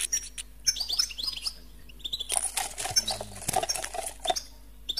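European goldfinches calling in short, high twittering chirps, then fluttering and scrabbling about two seconds in as several caught birds beat their wings inside a small wooden box with wire bars.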